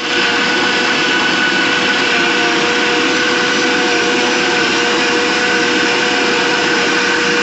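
Electric mixer grinder starting abruptly and running steadily, grinding a cooked masala to paste in its steel jar, with a constant motor whine over the grinding noise.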